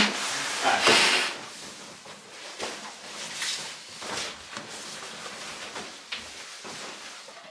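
A breath blown hard into an inflatable sleeping pad's valve about a second in, then the rustle and crinkle of a nylon sleeping bag and pad being handled and spread out on a wooden bunk.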